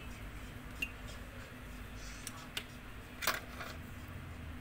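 A few light clicks and taps as painting supplies and paper are handled on a table, the loudest about three seconds in, over a steady low hum.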